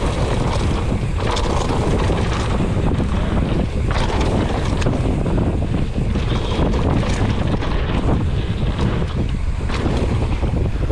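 Wind buffeting the camera microphone during a fast mountain-bike run, a loud steady rumble. Scattered knocks and rattles of the bike over rough trail come through it.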